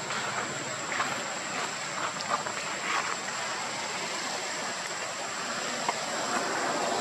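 Steady outdoor background noise with a constant high-pitched whine, and a few faint short sounds over it.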